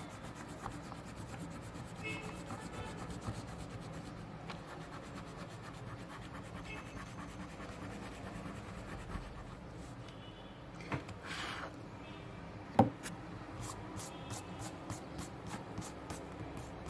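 Eraser rubbing over drawing paper, cleaning charcoal smudges from around a drawing, with a few light clicks in the second half.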